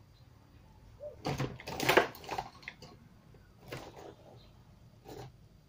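A few short bursts of scraping and rustling handling noise from hands working at the speaker cabinet. The loudest cluster comes about two seconds in, with briefer ones near four and five seconds.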